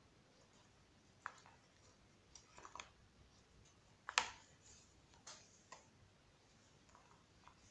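Scattered faint clicks and paper taps of hands unwinding the twine from the button-and-string closure of a paper scrapbook folio, with one sharper click about four seconds in.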